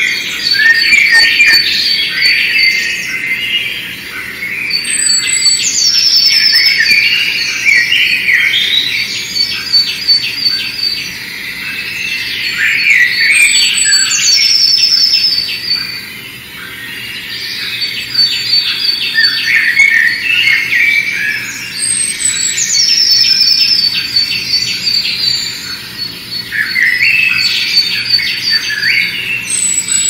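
Small songbirds singing: a busy mix of bright chirps, whistles and trills, with a high, falling whistled phrase that comes back several times. There is no low pigeon cooing.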